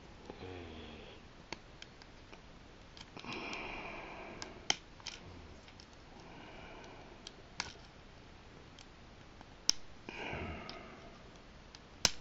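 Small sharp plastic clicks, about five of them a few seconds apart, as fingers work at the landing gear of a Jazwares Micro Galaxy Squadron X-Wing toy that is stiff and hard to get out. A person breathes audibly through the nose every few seconds between the clicks.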